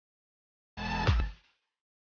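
Short sound effect for a video slide transition: a pitched burst lasting under a second, with a sharp hit in the middle, beginning about three-quarters of a second in.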